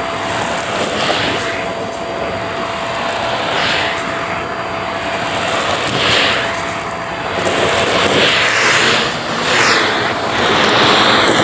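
Vacuum cleaner running with its crevice nozzle pushed into a pile of coins and small debris on carpet, sucking them up. A steady motor whine sits under a rushing airflow that swells and dips as the nozzle moves over the pile and carpet.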